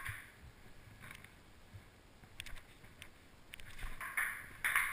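Ping-pong ball clicks: one sharp click at the start, a lull with a few faint knocks, then about a second before the end a rally starts with the ball clicking quickly off bats and table.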